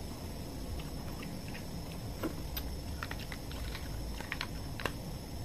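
Small irregular clicks and cracks of a cooked crab's shell being pried apart and picked at by hand, coming more often in the second half, over a steady low background hum.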